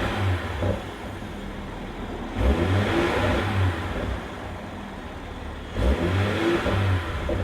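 Ineos Grenadier engine heard through a Milltek Sport stainless steel performance exhaust, revving. The exhaust note swells twice, about two and a half and six seconds in, over a steady low rumble.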